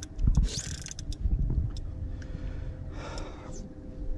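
Scattered light clicks and knocks from the fishing rod, reel and kayak fittings while a fish is played, over a low rumble of wind and water against the kayak hull, with a short rush of noise about half a second in and again about three seconds in.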